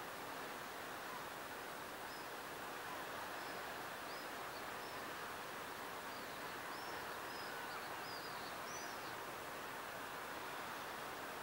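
Steady wash of calm sea waves on the shore, with a small bird giving a string of short, high chirps through the middle.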